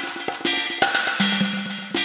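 Background music with drums and percussion keeping a steady beat.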